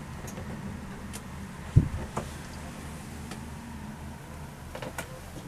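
A steady low hum, with one dull knock a little under two seconds in and a few faint light clicks.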